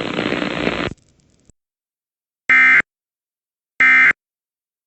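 Emergency Alert System data tones: two short identical bursts of warbling digital signal, about a second apart, sent as the end-of-message code that closes the alert. Before them, a noisy hiss cuts off abruptly about a second in.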